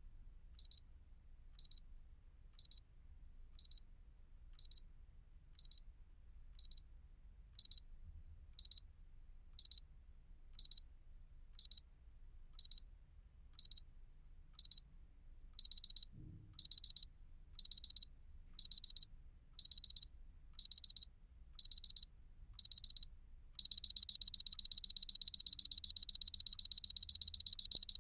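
Seiko KR899A alarm clock's progressive electronic alarm: a short high beep about once a second that grows louder in steps and, past the middle, comes in quick bursts. For the last few seconds it changes to a fast, unbroken beeping, the loudest part.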